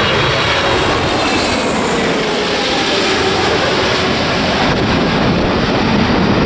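Jet airliner's engines passing close, a loud steady rush that turns brighter and hissier about a second in.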